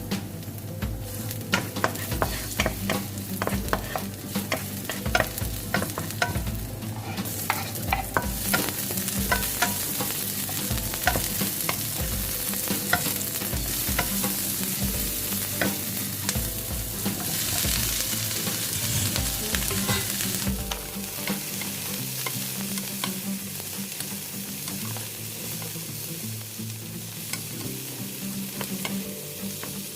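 Food sizzling in a frying pan while a utensil stirs it, with frequent sharp clicks against the pan that thin out in the second half.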